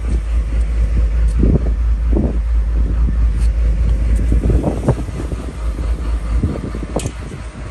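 Wind buffeting the microphone: a loud, uneven low rumble that rises and falls in gusts.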